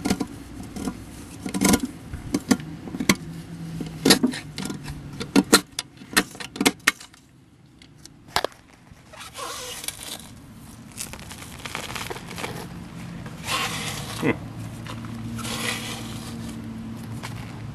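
Hard tool chipping and scraping hardened urine scale off the porcelain bottom of a toilet bowl: a quick run of sharp clicks and scrapes, a pause of about two seconds, then longer rasping scrapes. A low steady hum joins in the last few seconds.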